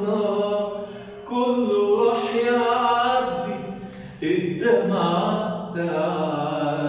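A man singing a classic Arabic song unaccompanied, drawing out long, ornamented notes in three phrases with short breaks about a second and about four seconds in.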